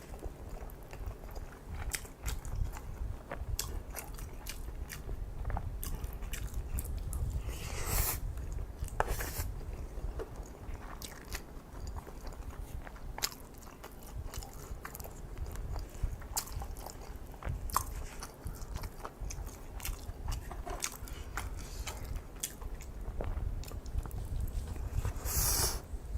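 Close-miked chewing of kimchi fried rice and kimchi: a steady run of wet mouth clicks and crunchy bites, with louder crunches about eight seconds in, again a second later, and near the end.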